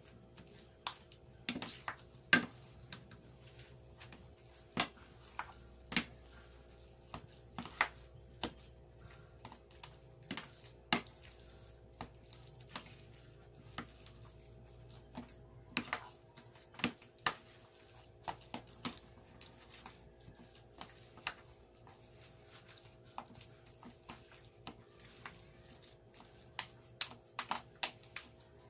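A utensil clicking and tapping irregularly against the bowl as mashed boiled squash batter is stirred and mashed, with a few sharp clicks every couple of seconds. A faint steady hum runs underneath.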